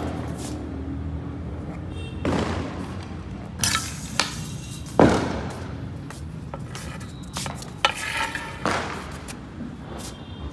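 About half a dozen scattered knocks and scuffs as a dog plays with a small ball on a concrete floor, each one sudden and fading quickly.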